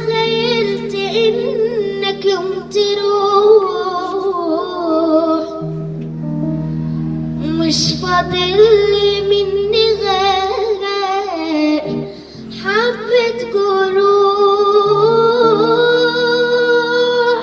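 A young girl singing a slow Arabic song into a microphone, her voice wavering through ornamented notes over steady held low accompaniment notes. The singing breaks briefly about two-thirds of the way through, then resumes.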